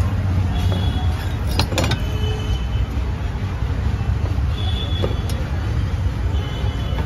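Steady low rumble of street traffic noise, with a couple of sharp clicks about two seconds in.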